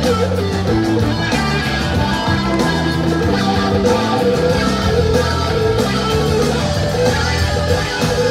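Live rock band playing an instrumental passage, led by two electric guitars over keyboards and the rest of the band, heard loud and steady.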